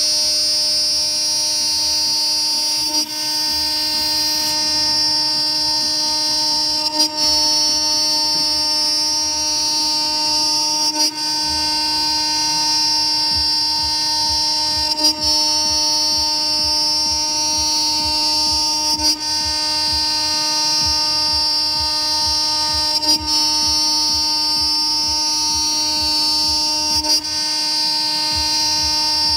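A CNC router's 2.2 kW, 24,000 rpm spindle and end mill milling 20 mm aluminium plate: a steady high-pitched whine with several constant tones, broken by a short click about every four seconds.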